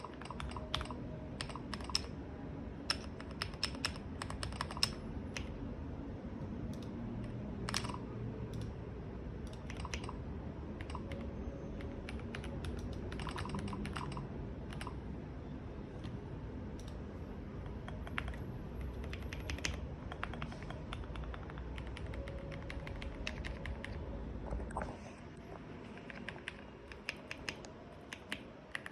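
Typing on an RKM75 mechanical keyboard with Gateron Milky Yellow Pro linear switches and Akko SAL-profile keycaps: a steady, irregular patter of keystrokes. A low background rumble under the typing drops away near the end.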